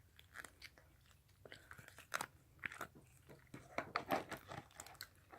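Melted, sticky milk slime with fishbowl beads being squished and poked by hand: faint, irregular wet clicks and crackles, busiest in the second half.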